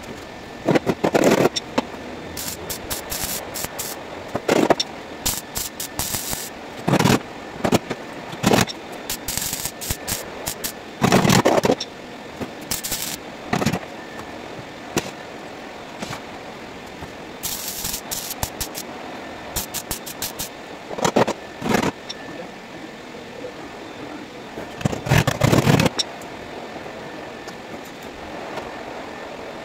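MIG welder laying a series of short spot (plug) welds on car body sheet metal: about fifteen irregular bursts of arc crackle, each under a second, the longest near the middle and toward the end.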